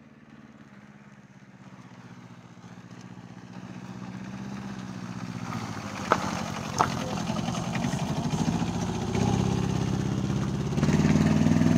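A car approaching from behind, its engine growing steadily louder as it nears. Two short clicks sound about six and seven seconds in.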